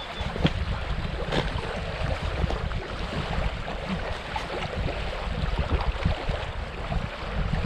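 Wind buffeting the microphone in uneven gusts, a low rumble over a steady hiss, with a few faint clicks.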